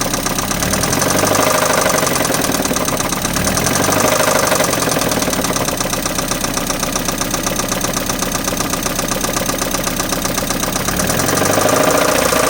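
1994 Mazda Miata's 1.8-litre four-cylinder engine running with a fast, even knocking tap, briefly revved up three times (about one, four and eleven seconds in). The owner is unsure whether the noise is rod knock or a bad lifter.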